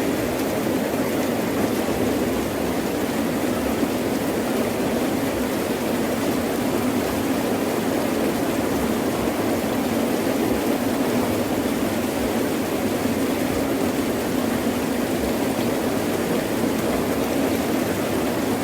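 Heavy rain pouring steadily, an even rushing noise with no distinct thunderclaps.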